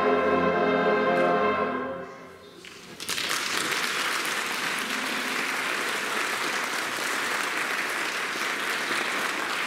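A middle school concert band holds a sustained chord that dies away about two seconds in. After a brief gap the audience breaks into steady applause.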